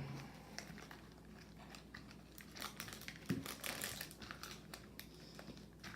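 Plastic wrappers crinkling in quick, scattered crackles as small packets of a toy surprise ball are handled and unwrapped.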